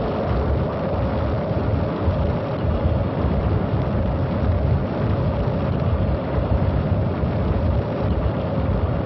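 V-2 ballistic missile's liquid-fuelled rocket engine firing at lift-off: a loud, steady, heavy rush of noise, strongest in the low end, with a faint held tone running through it.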